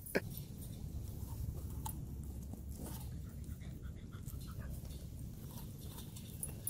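Siberian husky sniffing and nosing at a fallen apple on gravel: faint snuffling with a few small clicks, over a low steady rumble.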